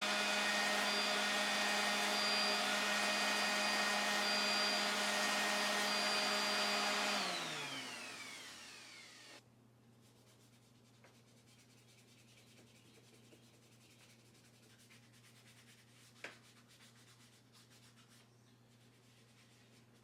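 Electric power tool motor running steadily with a whine, then switched off about seven seconds in, its pitch falling as it winds down to a stop. Afterwards only a faint hum and a single light click.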